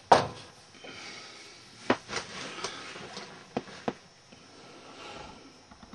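A few sharp knocks and clatters, the loudest right at the start and a pair about two seconds in, with quieter shuffling between: boxes and parts being handled and moved in a storage cabinet.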